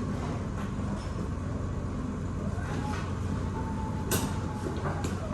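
Electric pallet jack working: a steady low mechanical hum, with its drive motor whining up in pitch and holding for about a second just past halfway, then a short click or knock.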